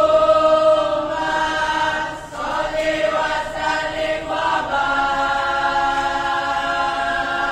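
A group of voices chanting in unison, holding long sustained notes. The chant breaks off briefly about two seconds in, then resumes.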